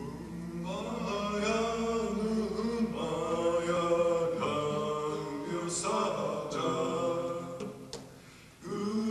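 Slow chanting, sung in long held notes, with a short break just before the end.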